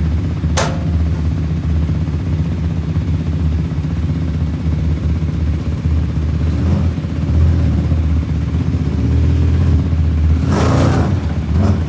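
Can-Am Maverick side-by-side's engine running at low revs as it is driven up onto a flatbed trailer, swelling twice with throttle. A sharp knock about half a second in and a rattling clatter near the end.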